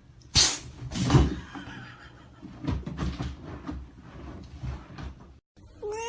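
Bumps, knocks and rustling, with a loud noisy burst about half a second in and again about a second in. Near the end a high, drawn-out whining cry begins, rising at first and then holding steady.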